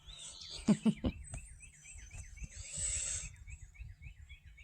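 A bird calling in a rapid run of short, falling chirps, about three to four a second. A brief hiss or rustle comes near the middle, and a couple of short low sounds come about a second in.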